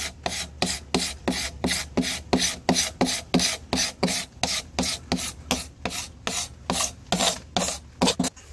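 Hand scraper scraping cured epoxy resin off a wooden slab in quick, even strokes, about three or four a second.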